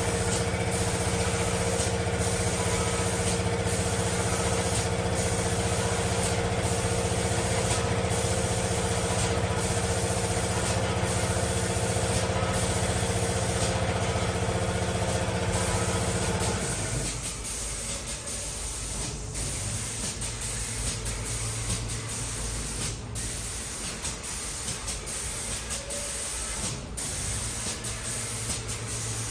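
Automatic spray painting machine for cabinet doors running: a steady mechanical hum with several constant tones. A little over halfway through the hum stops abruptly, leaving a quieter steady hiss from the spray gun.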